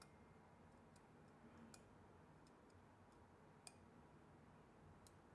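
Near silence: room tone with a few faint, isolated small clicks.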